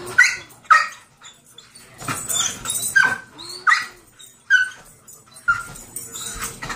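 Ridgeback dog giving about six short, high-pitched yelps, some dropping in pitch, as it jumps excitedly at bubbles.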